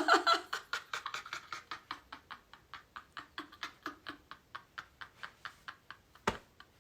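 A woman's laughter trailing off into soft, breathy rhythmic "ha-ha" pulses, about five a second, growing fainter. A single sharp click comes near the end.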